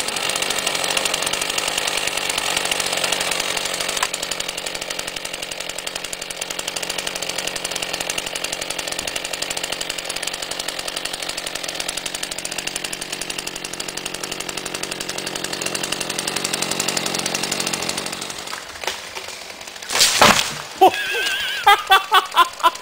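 Two-stroke chainsaw running steadily while it cuts into a standing tree trunk, dying away about eighteen seconds in. About two seconds later comes a loud crash as the rotten tree falls and breaks apart, then a quick run of short sharp sounds.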